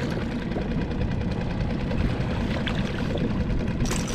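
Small outboard motor running steadily at trolling speed. Near the end, a short splash as a hooked calico bass is lifted out of the water.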